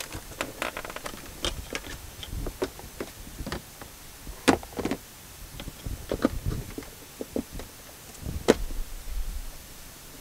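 Scattered clicks, scrapes and knocks of a screwdriver and hands working on a plastic car door trim panel as screws are turned out. Two sharper knocks stand out, about four and a half seconds in and again about eight and a half seconds in.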